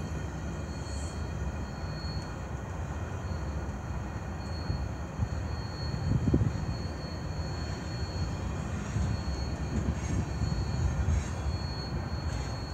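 Freight cars of a CN freight train rolling past: the steady low rumble and clatter of steel wheels on the rails, with louder clunks about five and six seconds in. A faint high squeal comes and goes.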